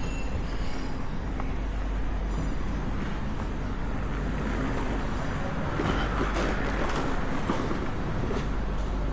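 Outdoor street ambience: a steady rumble of traffic, swelling as a vehicle passes about six seconds in.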